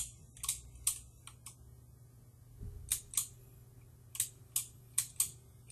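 Irregular clicking from a computer mouse and keyboard, about a dozen sharp clicks, some in quick pairs, over a faint steady low hum.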